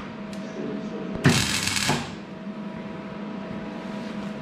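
A short burst of welding, likely a tack weld, about a second in, lasting around half a second, over a steady machine hum.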